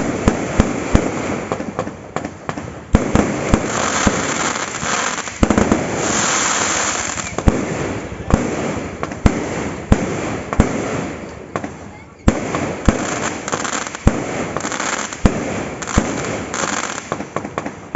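Fireworks going off: a rapid, irregular string of sharp bangs over continuous crackling and hiss, with a longer hissing burst about six seconds in and a brief lull about two-thirds of the way through.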